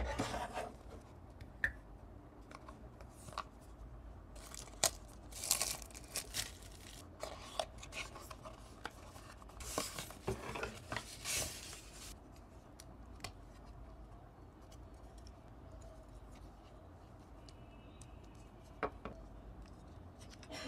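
Paper packaging rustling and crinkling as a cardboard box is opened and its contents unwrapped by hand, with light clicks and taps. The rustling stops about twelve seconds in, leaving only faint handling clicks.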